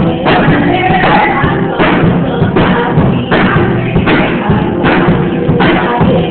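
A child playing a drum kit in a steady beat, with cymbal-like strikes recurring about every three-quarters of a second, inside continuous music.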